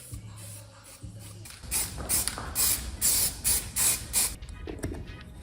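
Short, rapid bursts of pressurised spray hiss, about three a second, after a low steady hum at the start.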